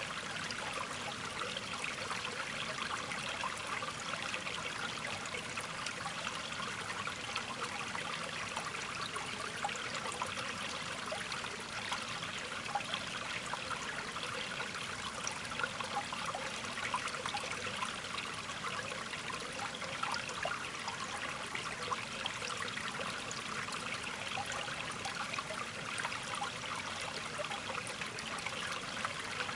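Steady trickling, babbling water, like a small stream, with a constant splashing patter.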